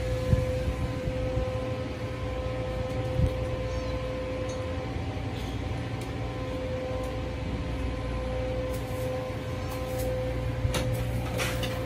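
Steady mechanical hum of room machinery, with a constant tone over a low rumble. Near the end come a couple of brief rustles as a cat paws at a tinsel wand toy.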